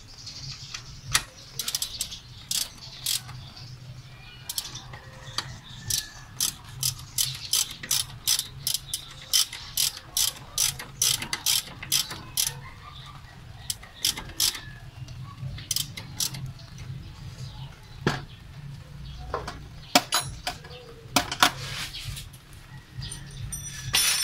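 Ratchet wrench clicking in short strokes, single clicks and quick runs of clicks, as a bolt is turned to set the engine's drive-belt tension.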